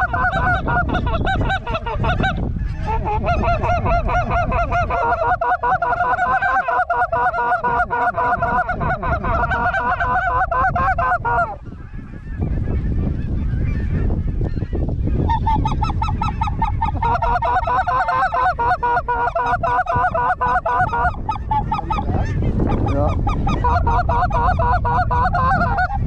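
A large flock of geese calling together in a dense, continuous clamour. It breaks off for a few seconds about halfway through, then resumes.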